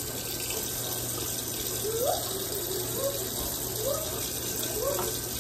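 Kitchen tap running steadily into a stainless steel sink.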